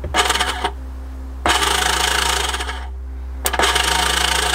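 2000 Sea-Doo RX DI's electric starter motor fed directly from a jumper lead, spinning freely three times, short, then longer, then longest, the last two beginning with a sharp snap. It whirs without cranking the engine: the Bendix drive is not engaging.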